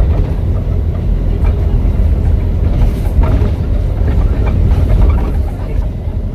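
ADL Enviro 400 double-decker bus, converted from hybrid to diesel, running: a loud, steady low engine and road rumble with scattered rattles and clicks.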